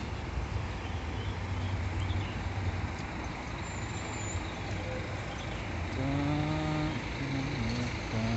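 Large diesel bus engine idling with a steady low hum. A brief pitched sound with several overtones stands out about six seconds in, followed by a few shorter broken tones.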